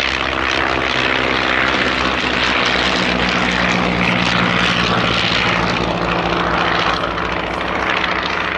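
Vintage biplane piston engines and propellers running steadily as a de Havilland Tiger Moth, with its four-cylinder Gipsy Major, and an Avro Tutor, with its Armstrong Siddeley Lynx radial, fly past in formation. The drone swells slightly midway.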